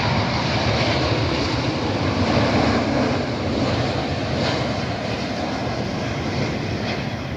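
Jet engines of a landing Boeing 777-200 airliner: a steady rushing roar that peaks about two and a half seconds in and then slowly fades.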